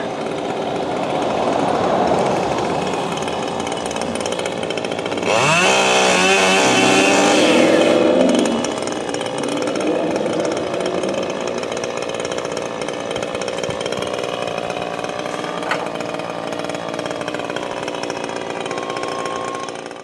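Stihl chainsaw running steadily, revved up with a rising whine about five seconds in and held at high speed for about three seconds, then dropping back to a lower running speed.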